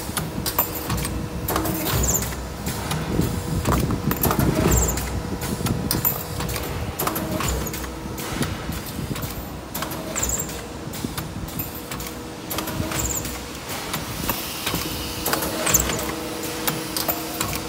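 Automatic wire ring making and welding machine running: irregular clacking and knocking over a steady machine hum that comes and goes.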